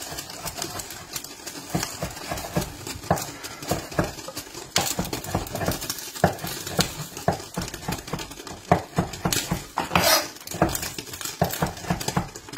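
Kitchen knife chopping chestnuts on a wooden chopping board: a quick, irregular run of knocks as the blade strikes the board.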